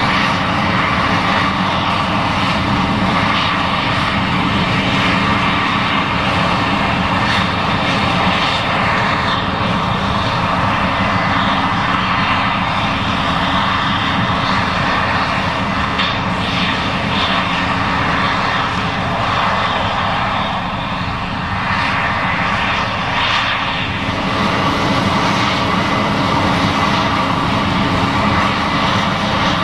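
Case IH 7140 Axial-Flow combine running under load while harvesting corn: a loud, steady engine and machinery drone that dips slightly about two-thirds of the way through.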